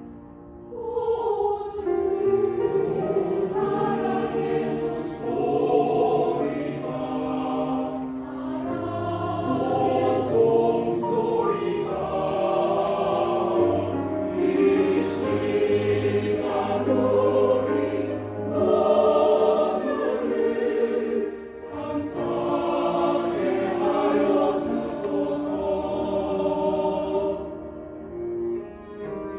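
Mixed choir singing a hymn in Korean, entering about a second in and breaking off shortly before the end.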